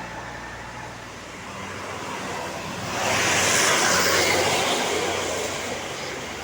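Road traffic; a vehicle passes close about three seconds in, with a rising and then fading rush of tyre and wind noise.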